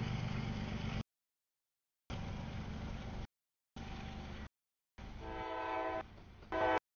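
Freight train rumble from tank cars rolling over a grade crossing, heard in short pieces that cut off abruptly with silent gaps between. About five seconds in, a CSX diesel locomotive's air horn sounds a long blast, then a short one near the end, as it approaches the crossing.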